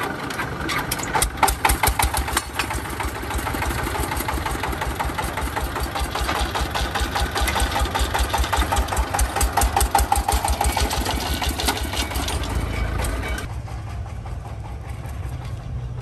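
Single-cylinder diesel engine of a walking tractor, hand-cranked and catching, then running with a rhythmic chugging beat. Near the end this gives way to a lower, steadier hum.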